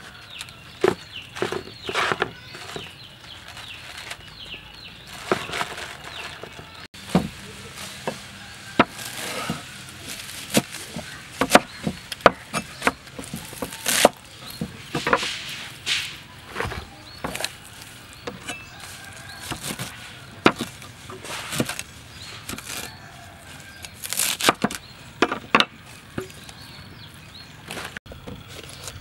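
A cleaver chopping water spinach on a wooden cutting board: an irregular string of sharp chops.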